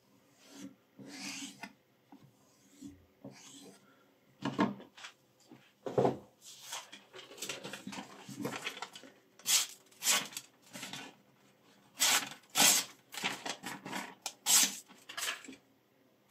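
A steel kitchen knife edge rasping in strokes: a few soft passes along a flat sharpening surface, a couple of knocks as it is handled, then a run of louder, sharp hissing strokes as the freshly sharpened blade slices through sheets of paper to test its edge.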